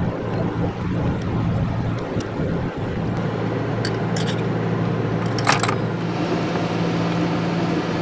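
Roadtec asphalt milling machine running: a steady low diesel drone over a broad rumble. A brief sharp clatter comes about five and a half seconds in.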